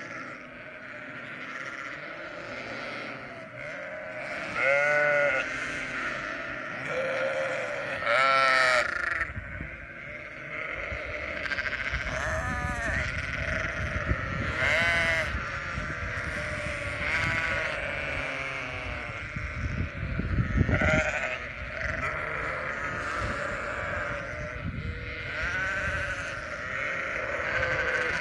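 A large flock of Sardi sheep bleating, many calls overlapping one after another, with a low rumble underneath through the second half.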